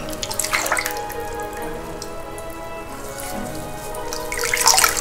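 Water sloshing and splashing in a plastic tub as a gloved hand swirls through it, with louder splashes about half a second in and near the end, over steady background music.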